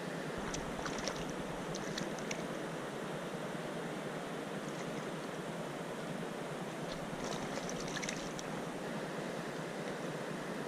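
River water rushing steadily over a riffle. Two short runs of light, high clicks sound above it, one early and one about seven seconds in.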